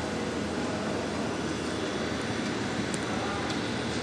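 Steady background hum and noise, as of air conditioning in a dining room, with faint indistinct voices underneath.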